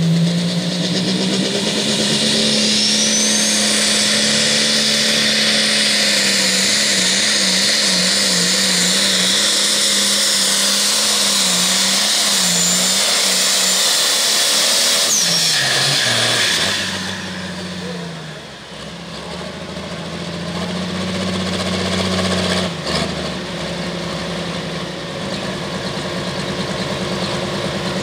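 Turbocharged diesel pulling tractor running flat out under load down the track, its engine note rising at the start and then wavering up and down. About sixteen seconds in the throttle is let off and the engine falls back to a lower run, with a single sharp clack a few seconds later.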